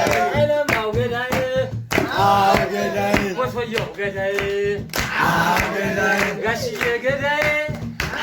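A group of people singing together in phrases, with rhythmic hand clapping.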